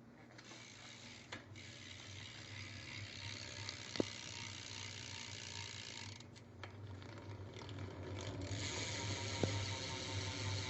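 Stock rear hub of a BMX bike freewheeling as the back wheel spins, its pawls ratcheting in a fast, fairly quiet buzz of clicks. The buzz dips briefly past the middle and then picks up again. A couple of single sharper clicks stand out.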